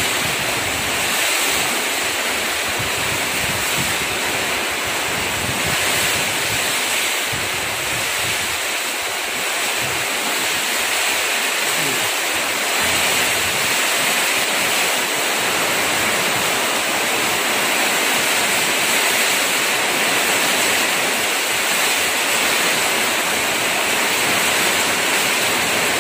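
Heavy tropical downpour: rain pouring steadily, with a continuous hiss of falling water.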